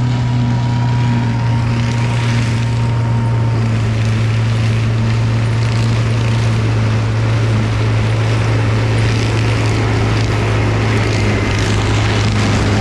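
New Holland combine harvester's engine running at a steady speed, a constant low drone without change.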